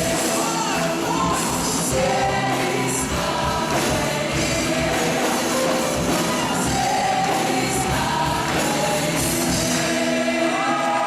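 Live music: a vocal ensemble singing together with a band accompanying them.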